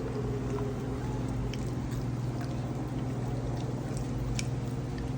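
Wolf chewing food, a few faint scattered clicks and crunches, over a steady low hum.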